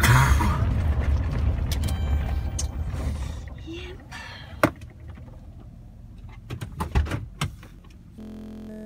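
Low road rumble inside a moving car, loud for the first few seconds and then dropping away, with a few sharp knocks as the phone is handled. Near the end a steady hum cuts in abruptly.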